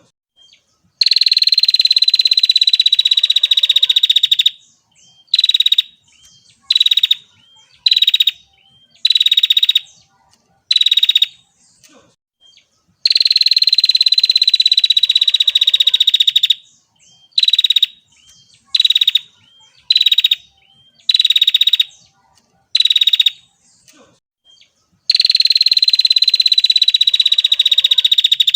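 Female prinia (prenjak) calling in long, rapid buzzing trills of about three seconds each, sinking slightly in pitch, alternating with short buzzy bursts about once a second. The same sequence comes round again every twelve seconds or so, as a looped lure call.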